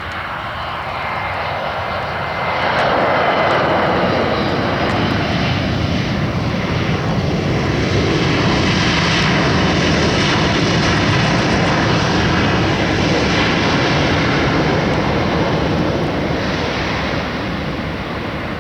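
Airbus A320 jet engines roaring as the airliner comes in to land, swelling loud about two and a half seconds in, holding, then fading near the end.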